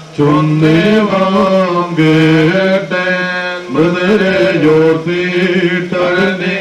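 Men's voices chanting a slow liturgical funeral hymn, holding long notes that step slowly up and down in pitch, with brief breaks for breath.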